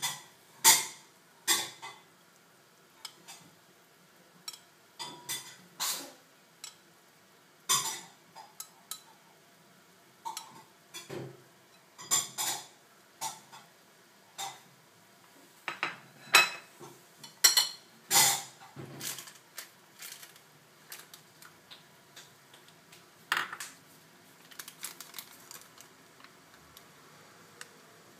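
Kitchen utensils clinking and tapping: chopsticks and a spoon striking a frying pan, plate and bowl in irregular sharp clinks, fewer toward the end.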